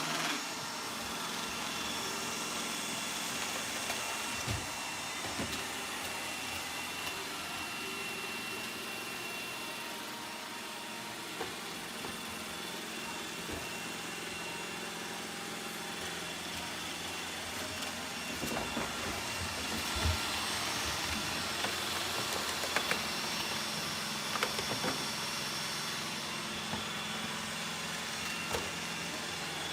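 Roomba robot vacuum running: a steady motor whir with faint whining tones, and a few light knocks and clicks scattered through it.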